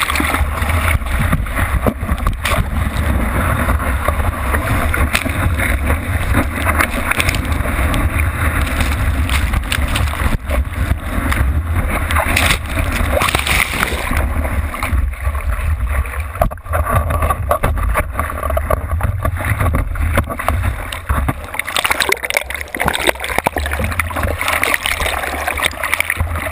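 Sea water rushing and splashing over a GoPro camera housing mounted on a surfboard as it moves through whitewater, with a steady low rumble of water buffeting the case.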